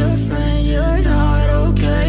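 Background music: a melodic line wavering over steady bass notes, the bass shifting about a second in.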